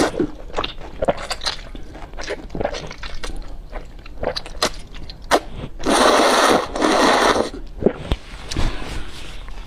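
Close eating sounds: chewing, smacking and small clicks of food and utensils. About six seconds in comes a loud slurp of noodles lasting about a second and a half.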